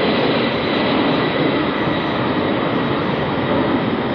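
Boeing 767-300ER's two Pratt & Whitney PW4000 turbofans at takeoff thrust as the airliner climbs out: a loud, steady jet roar with a thin high whine.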